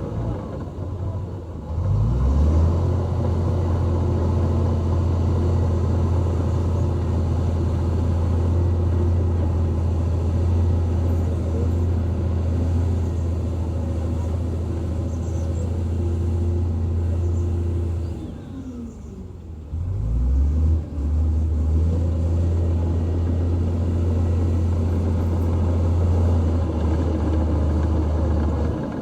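Diesel engine of heavy earthmoving machinery running under load, a steady low drone. It drops away briefly at the start and again about two-thirds of the way through, falling and then rising in pitch before picking back up.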